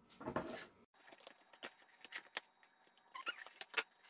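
Light clicks, taps and soft rustling of cardboard and plastic toy packaging being handled, with a short cluster of sharper clicks a little after three seconds in.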